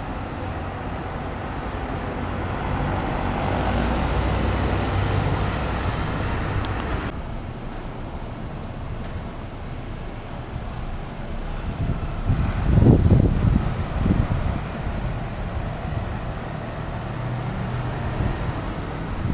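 City buses passing along a street. Traffic noise swells as a bus goes by in the first few seconds. After an abrupt change about seven seconds in, a red articulated bus approaches and passes, with a louder burst of low, uneven rumbling about two-thirds of the way through.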